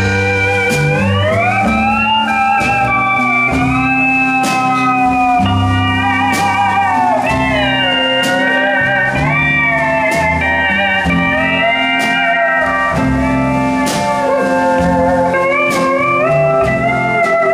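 Franklin pedal steel guitar playing a melody of sliding, bending notes over a country band, with electric guitar, bass and light drum hits underneath.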